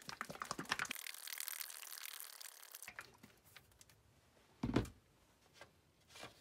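A quart can of latex paint being shaken by hand: paint sloshing inside the metal can with quick rattling knocks for about three seconds. A single low thump follows a little after the middle as the can is set down.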